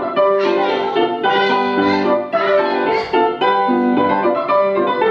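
Piano music playing as the accompaniment for a ballet class exercise.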